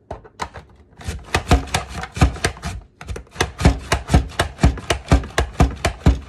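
Pampered Chef Rapid Prep Mandoline being pumped by hand, its plunger driving small potatoes through the blades to dice them: a fast run of sharp chopping clacks, about four a second, with a short break about three seconds in.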